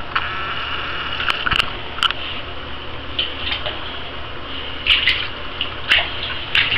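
Shallow bathtub water splashing and lapping as pet rats swim through it, with a few short sharp splashes about a second in and more near the end, over a steady hiss.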